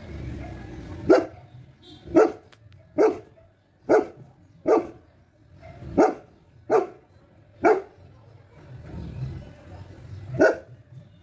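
Saint Bernard barking: nine single barks about a second apart, with a pause of about two and a half seconds before the last one.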